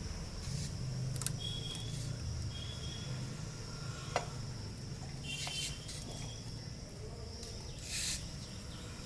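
Steady high-pitched insect chirring over a low hum, with scattered clicks and a sharp tick about four seconds in.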